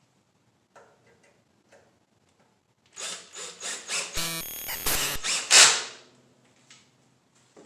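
Tool work: a few faint clicks, then about three seconds of loud rapid clicking, with a short steady whine in the middle.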